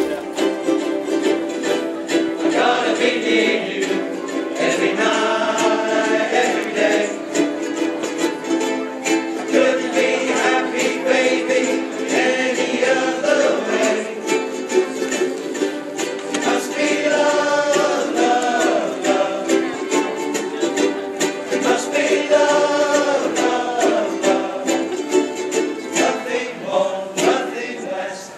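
A large ukulele ensemble strumming together, with a group of voices singing along.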